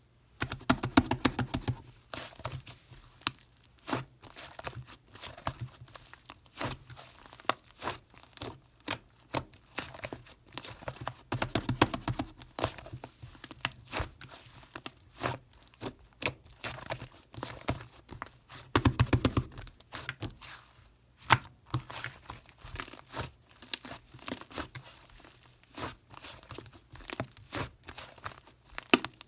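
Hands squishing, stretching and tearing a soft clay-mixed slime, with dense, irregular crackling and small pops. Louder, busier spells come about a second in, near the middle and about two-thirds of the way through.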